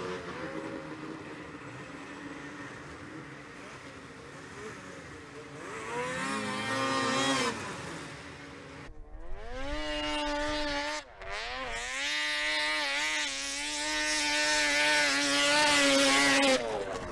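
Snowmobile engines, 600-class two-strokes, revving hard on a steep hillclimb, the pitch rising and falling with the throttle. The note is fainter for the first few seconds, then loud and climbing from about nine seconds in, and it breaks off abruptly twice.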